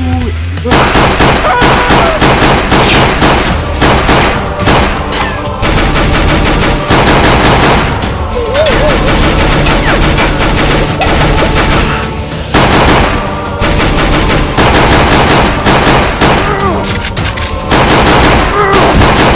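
Rapid automatic gunfire in long, dense volleys, starting a little under a second in, with music underneath.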